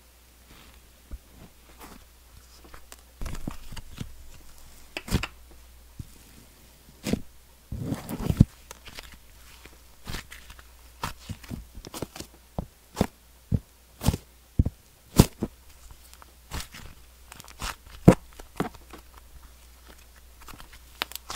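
Hands squishing, poking and stretching a soft butter slime made with clay: irregular sticky clicks and small pops, at times several a second, with a couple of longer crackly stretches about three and eight seconds in. Being a butter slime, it gives only weak bubble pops.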